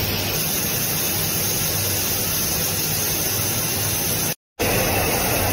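Steady in-flight aircraft engine noise: an even hiss over a low hum. It cuts out completely for a moment near the end.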